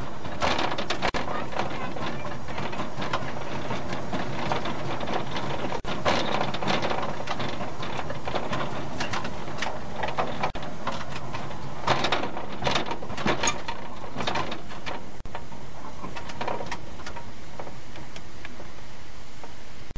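Small narrow gauge steam locomotive running with its train, heard from the footplate: a steady mechanical running noise with many knocks and clicks from the motion and wheels, busiest about six seconds in and again around twelve to thirteen seconds.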